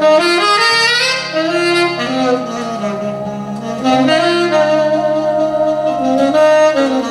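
Instrumental worship music: a saxophone playing a slow, gliding melody over held low notes.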